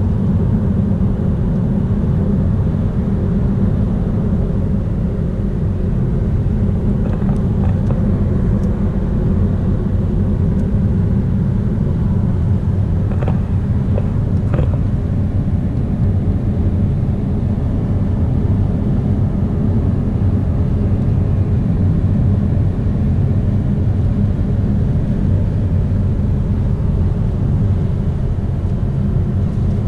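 Steady low road and engine noise of a car driving at speed, heard from inside the cabin, with a couple of faint clicks about halfway through.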